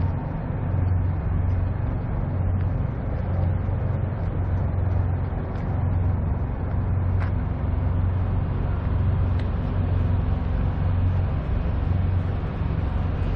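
Diesel engine of a Peterbilt semi tractor idling: a steady low rumble.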